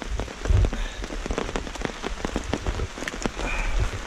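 Rain falling, with many separate drops striking close by, and a low thump about half a second in.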